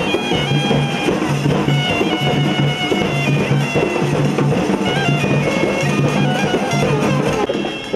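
Folk procession band playing: a reed pipe plays a droning, shifting melody over a steady beat of large stick-struck frame drums (tamate) and small hand cymbals.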